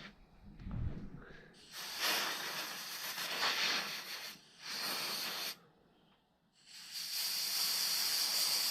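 Three long hissing blasts from a pressurised nozzle, the first about two and a half seconds, a short one, then a longer one near the end, blowing out the motorcycle's fuel filter screen.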